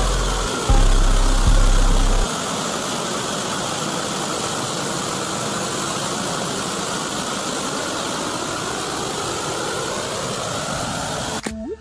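Handheld gas torch flame burning with a steady rushing roar as it chars wooden fence boards. Deep low tones sound for the first two seconds.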